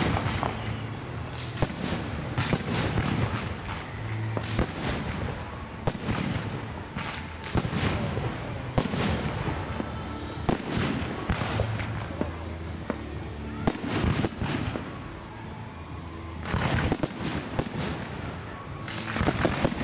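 Fireworks display: a continuous run of sharp bangs and crackling from bursting shells, with dense rapid volleys about three-quarters of the way through and again near the end.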